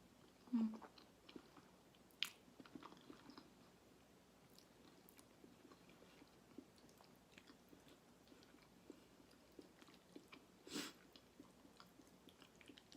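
Faint, close-miked chewing of a big mouthful of creamy alfredo pasta, with many small wet mouth clicks. A brief louder sound comes about half a second in, a sharp click a couple of seconds in, and a short louder rush of noise near the end.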